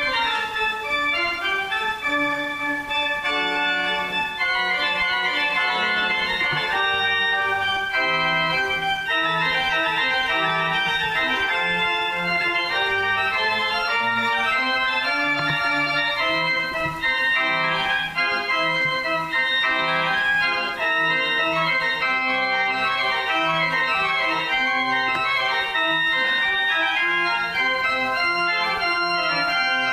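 Organ music: many notes held together over a moving bass line, played without a break.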